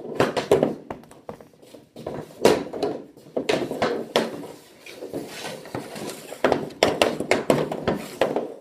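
Hockey sticks and rubber pucks clacking and scraping on a shooting pad as pucks are pulled out of a pile: a run of irregular knocks and scrapes.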